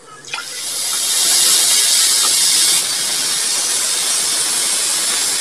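Water poured into a large aluminium pot of blended green chilli and coriander: a steady, loud rushing hiss that builds over the first second or so and stops abruptly at the end.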